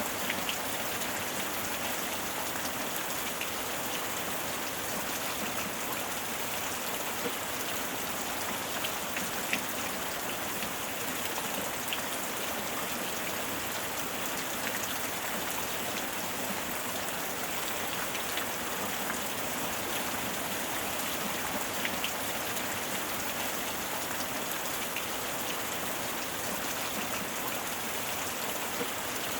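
Steady heavy rain with scattered individual drops striking close by.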